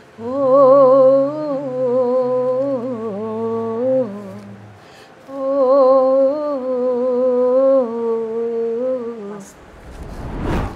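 A woman hums a melody without words in two long phrases, each note wavering in pitch. Near the end a rising whoosh swells up and cuts off.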